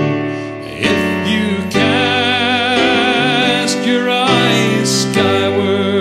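A man singing slow, held notes with vibrato over piano chords.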